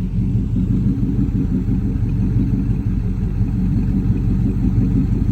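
Car engine idling low and running smooth and steady.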